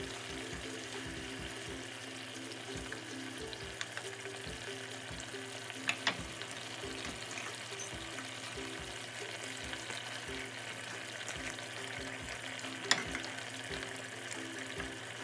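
Fish curry sizzling and bubbling in a frying pan, a steady hiss, under quiet background music. A few sharp clicks stand out, two close together about six seconds in and one near the end.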